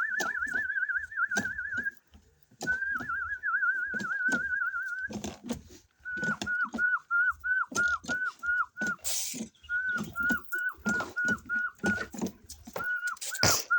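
Whistling: a high trilled note held for a couple of seconds at a time, then short repeated notes, each with a quick downward flick, about three a second. Sharp clicks and knocks go on throughout, with a brief hiss about nine seconds in and another near the end.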